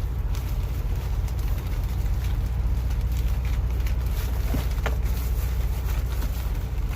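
Steady low rumble of an idling engine, with a couple of faint clicks about four and a half seconds in.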